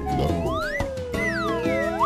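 Children's background music with a cartoon sound effect of whistle-like tones swooping up and down. The music drops out briefly at the start and comes back about a second in, and a rising glide ends the effect.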